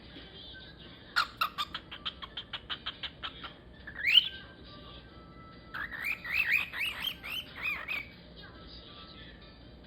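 A three-month-old cockatiel warbling its early song: a quick run of short chirps, one loud rising whistle, then a string of rising-and-falling whistled notes. This is a young bird's first practice song.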